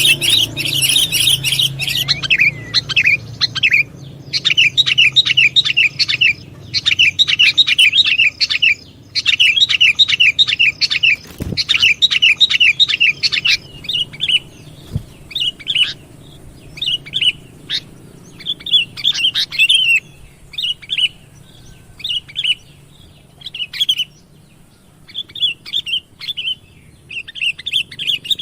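Sooty-headed bulbul (kutilang) calling: fast runs of short chirps, dense and continuous for about the first half, then broken into shorter phrases with gaps between them.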